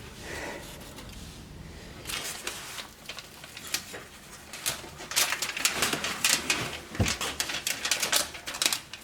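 Plastic steam-protector strip crackling and clicking as it is handled and pressed into place. The crackle is irregular and quick, and it grows busier and louder from about two seconds in.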